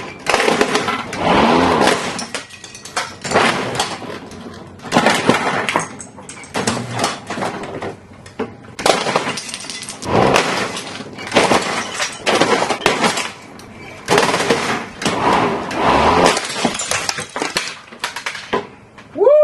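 A plastic toy being smashed and shredded by a lawnmower's blade: a long series of loud crunching crashes, one every second or two.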